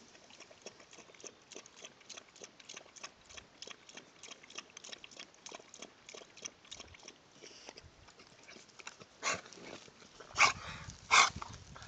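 Blue nose pit bull lapping water from a bucket: a steady run of soft, wet laps, about three to four a second. Near the end the lapping stops and a few louder short noises follow.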